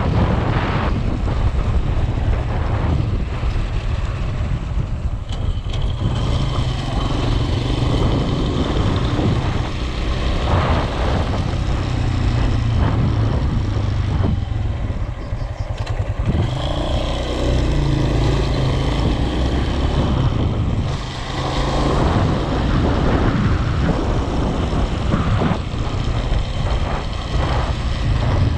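Motor vehicle on the move: steady engine and road rumble, heaviest in the low end, dipping briefly twice.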